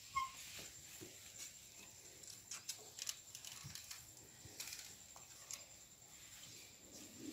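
Light scattered taps and scuffs of a baby monkey crawling and climbing over a bed and wooden furniture. A short high squeak comes a fraction of a second in, and a faint steady high tone runs underneath.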